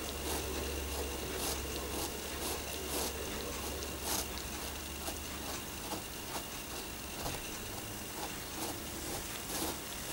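Cat licking a dark plush fabric sofa cushion: repeated short rasping licks of the tongue on the fabric, about two a second. A steady low hum runs underneath for the first half.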